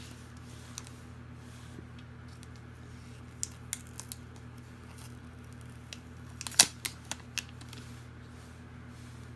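Packaging being handled: a scatter of sharp clicks and taps, the loudest cluster about two-thirds of the way through, over a steady low hum.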